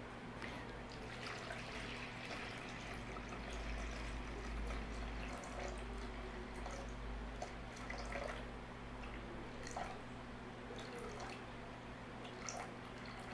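Water poured slowly from a plastic pitcher into a plastic bowl, a faint steady trickle and splash, over a steady low hum.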